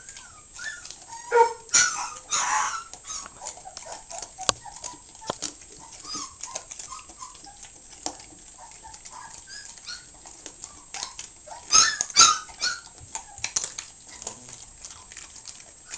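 A puppy chewing raw chicken breast, with many wet clicks and smacks of the jaws and two louder noisy bursts, about two seconds in and again around twelve seconds. Faint dog whimpers come and go in the background.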